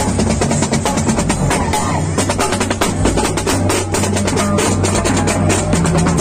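A marching band's drumline playing: quick strokes on tenor and snare drums with bass drum beats, over steady low notes.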